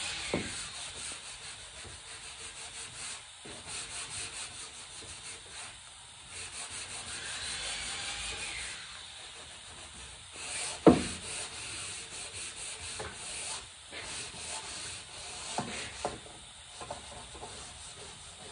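Sandpaper rubbing back and forth on red oak in repeated strokes, smoothing the wood. A few sharp knocks break in, the loudest about eleven seconds in.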